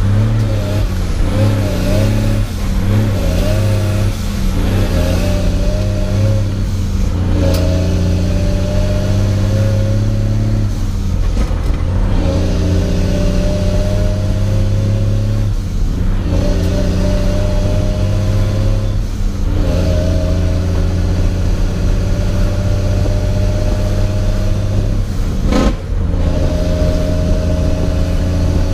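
Semi truck's diesel engine pulling through the gears of an 18-speed manual transmission, heard from inside the cab. The engine holds a steady note under load in each gear and drops away briefly at each of about six shifts, with a couple of sharp clicks.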